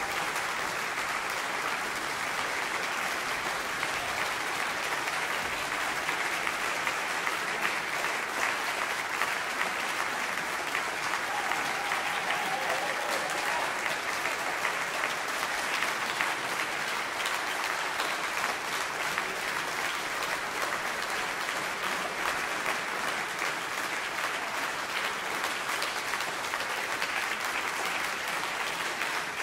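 Audience applauding steadily: dense, even clapping with no let-up.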